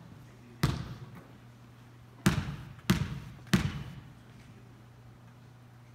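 Basketball bounced four times on a hardwood gym floor, each bounce echoing in the hall: one bounce, then three in an even rhythm. These are a shooter's dribbles at the free-throw line before the shot.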